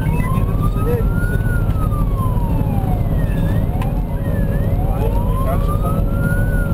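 Fire engine's wail siren, its pitch sliding slowly up and down, one rise and fall every few seconds, over the loud low rumble of the engine and road noise.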